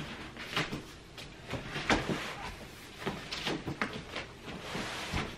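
Corrugated cardboard shipping box being pulled back and torn by hand around the boxed iMac. Irregular crackles, scrapes and rustles, the loudest about two seconds in.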